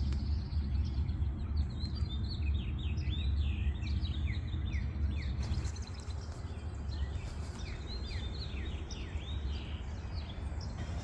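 Small birds chirping, many short falling chirps overlapping one another, over a steady low rumble.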